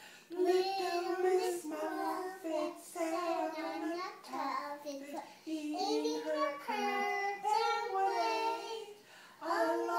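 Young girls singing a children's song, with short gaps between sung phrases and a brief pause near the end before they go on.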